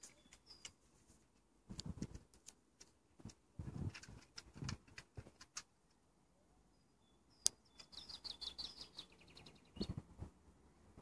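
A songbird in the background sings one quick run of high chirps, falling in pitch and speeding up, about seven seconds in, with a fainter chirp at the start. Scattered soft thumps and light clicks come from the dogs moving about on the wooden deck.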